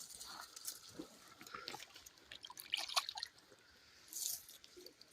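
Shallow creek water dripping and trickling, with light clicks of wet gravel being moved.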